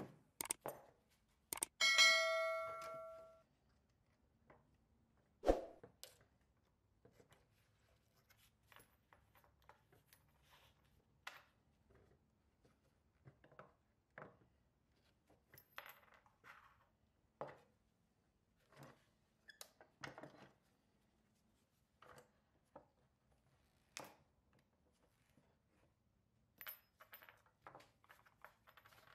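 A small metal piece drops with a sharp knock and rings clearly for about a second, about two seconds in. Scattered light clinks and taps follow as the steel toy trailer and its parts are handled and taken apart.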